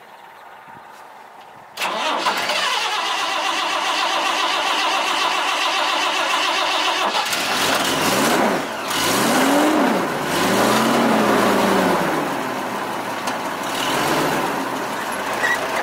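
The engine of a bale squeeze hay truck starts about two seconds in, catching suddenly, and settles into a steady run. Near the middle its pitch rises and falls a few times. It is the first start after a missing master cylinder has been fitted.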